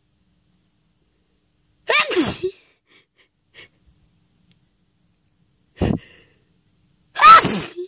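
A person's loud sneezes in a sneezing fit triggered by flowers. The first full sneeze comes about two seconds in, a short smaller burst follows near six seconds, and the loudest sneeze comes near the end. Each full sneeze has a cry that falls in pitch.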